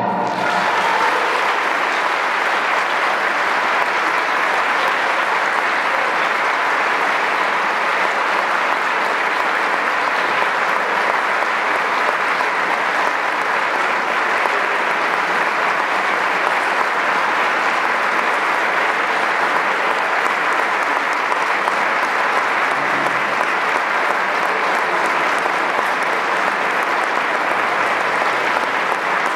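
Large audience applauding steadily and heavily right after an orchestral and choral performance ends, the orchestra's last chord dying away in the first moment.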